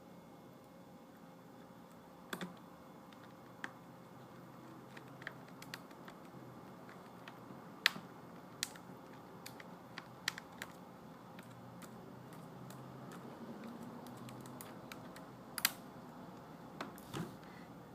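Irregular small clicks and taps from a Toshiba L655 laptop's plastic case and small screws being handled during reassembly, spread unevenly with a couple of sharper clicks, over a faint steady room hum.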